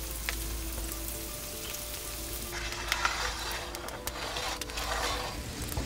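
Potato batons sizzling in vegetable oil in a pan, a steady hiss scattered with sharp crackles. The hiss thickens about two and a half seconds in, as the pan goes into the wood-fired oven.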